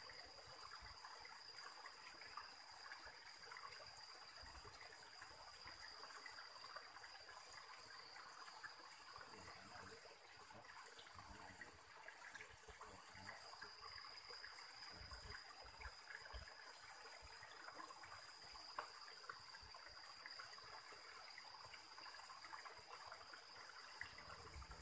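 Faint, steady trickle of stream water running over rocks into a pool, with a thin, steady high-pitched whine above it.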